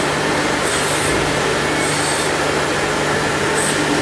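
Steady loud workshop machine noise: a continuous rushing with a low hum under it and short hissing bursts every second or so.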